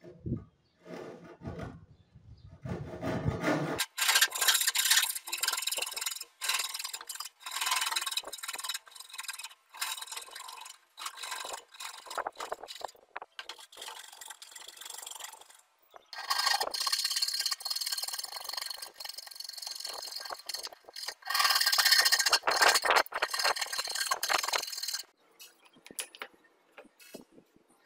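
Hand saw cutting through a wooden board in back-and-forth strokes, with several short pauses; the sawing stops a few seconds before the end.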